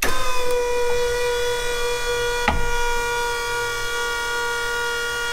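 Forklift lifting a small car, its hydraulic lift running with a steady whine that settles slightly lower in pitch just after it starts. A single sharp click comes about halfway through.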